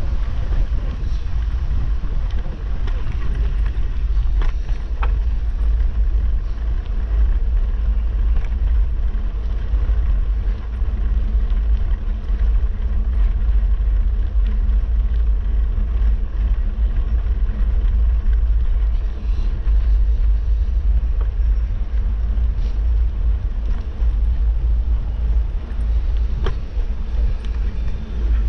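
Steady low rumble of wind on the microphone of a camera riding on a moving bicycle, with a few faint clicks.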